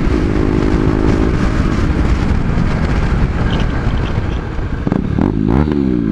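Motorcycle engines running on the road, with wind rush on the microphone. About five seconds in, the engine note drops and then climbs again.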